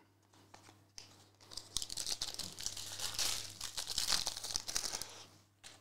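Foil wrapper of a Panini Prizm soccer card pack being torn open and crinkled by hand, from about a second and a half in until just before the end.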